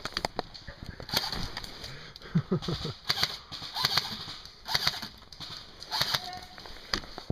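Footsteps crunching and rustling through dry leaves and twigs on a woodland floor, in irregular crackles about once a second.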